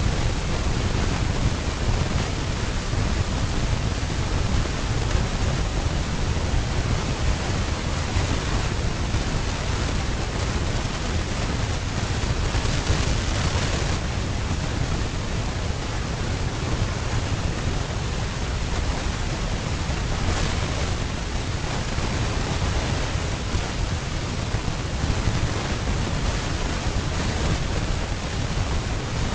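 Steady rushing noise with a heavy low rumble, slightly brighter for a moment about 13 seconds in. No elephant calls or other distinct sounds stand out.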